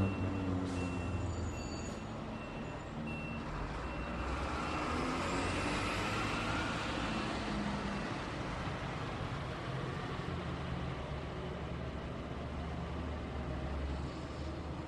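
Street traffic with a heavy vehicle's engine rumbling, while a reversing alarm beeps in a steady run of short high beeps that stops about halfway through.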